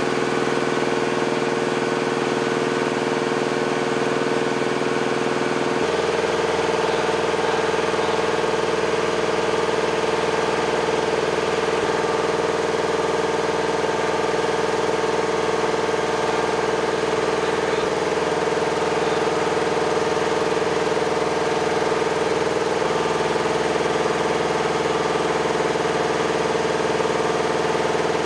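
An engine idling steadily, a hum of several even tones over a noisy background, which shifts abruptly to a different pitch about six seconds in.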